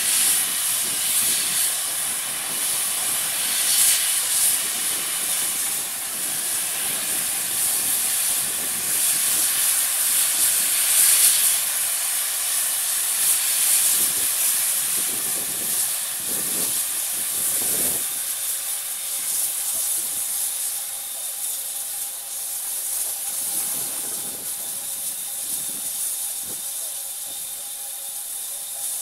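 Pannier tank steam locomotive standing and blowing off steam: a loud, steady hiss that eases off gradually over the last ten seconds or so.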